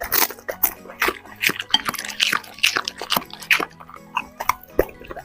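A dog eating close up: wet smacking and crunching chews, several a second at an uneven pace, over faint background music.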